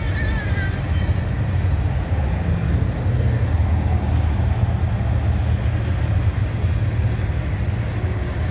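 Freight train rolling past close by: a steady, loud low rumble of the cars on the rails.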